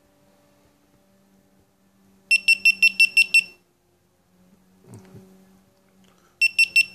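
GoPro Hero3 Black+ camera beeping: a rapid run of seven high beeps, then about three seconds later a run of three, matching the camera's seven-beep power-off and three-beep power-on signals. A brief handling rustle between them.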